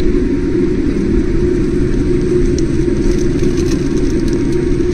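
Jet airliner's engines and rumble heard from inside the passenger cabin while taxiing: a steady low hum over a constant rumble.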